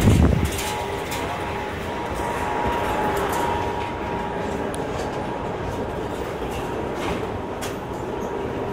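Metro station hall din: a steady rumbling hum with faint steady tones and scattered clicks, and a heavy thump right at the start.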